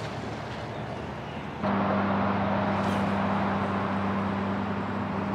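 Open-air hiss, then about a third of the way in a louder, steady engine hum sets in and holds one low pitch.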